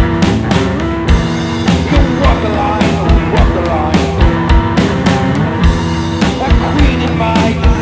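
Two-piece rock band playing: electric guitar over a drum kit keeping a steady beat, with cymbal hits.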